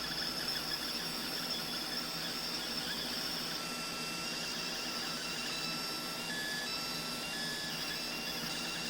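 Laser engraving machine running while it engraves an aluminum part: a steady mechanical hum with a high hiss. Partway in, short high tones begin to come and go at a few different pitches.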